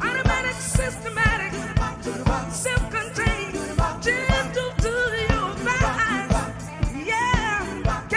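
Live soul band playing an upbeat Motown-style number, with a steady drum beat and singing over it.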